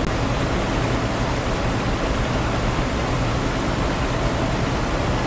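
Combine harvester running steadily while harvesting corn, heard from inside the cab: an even noise with a low hum beneath it.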